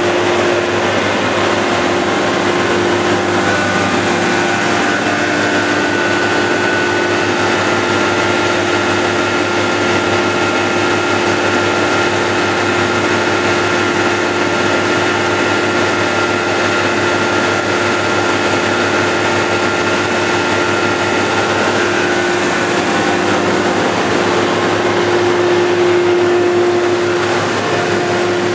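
Tractor-driven grain grinder running steadily at work, blowing ground grain out of its discharge spout: a loud, even mechanical drone with a steady hum and the rush of the grain stream.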